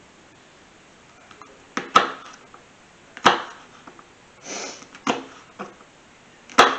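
Kitchen knife slicing through a jalapeño pepper and knocking onto a plastic cutting board: about half a dozen separate, irregularly spaced cuts.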